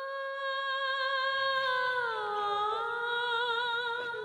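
Mournful background music: a long, held, humming-like melody with no beat, sliding slowly down in pitch and wavering near the end.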